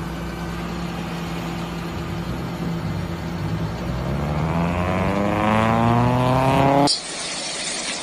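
Lamborghini Gallardo's V10 engine idling, then revving with a steadily rising pitch and growing louder from about three and a half seconds in, before it cuts off suddenly near the end.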